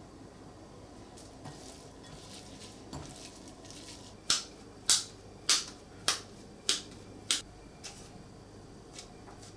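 Seasoned ground beef being worked by hand: soft squishing, then six sharp slaps of the meat about half a second apart in the middle.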